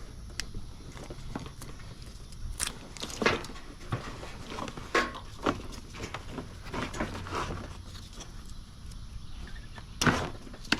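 Irregular clicks and knocks of hand work on car parts, several sharp knocks scattered through, the loudest about ten seconds in, over a low rumble.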